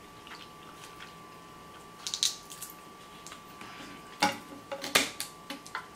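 Crab leg shells being cracked and cut with kitchen scissors: a scatter of short clicks and crunches, with soft handling of shellfish in a glass dish, over a faint steady hum.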